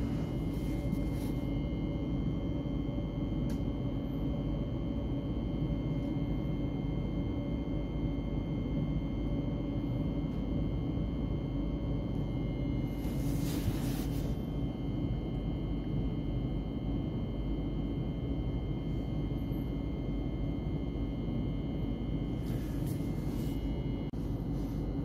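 Steady electrical hum and ventilation drone inside a Thameslink Class 700 electric train's passenger saloon, with several fixed whining tones over a low rumble. A short hiss comes about halfway through, with fainter ones near the start and the end.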